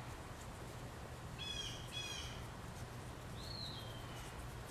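Bird calls: two short, clear calls in quick succession about a second and a half in, then a longer call that slides down in pitch, over a steady low background hum.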